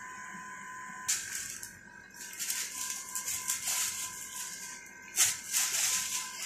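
Plastic shopping bags crinkling and rustling in irregular bursts as a cat pushes into them, starting about a second in. Before that, only a steady faint high whine.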